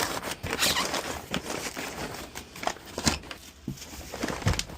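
Bubble wrap and packing padding crinkling and rustling as they are handled and stuffed into a box. Irregular crackles run throughout, with a few heavier knocks.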